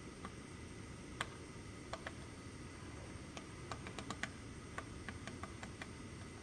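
Woodpecker pecking at wood: irregular sharp taps, single and in short uneven clusters, bunched more closely around the middle, not a drumming roll.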